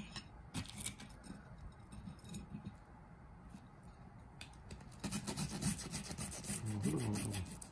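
Table knife sawing back and forth through crisp toasted bread, a faint rasping scrape that grows busier in the last few seconds.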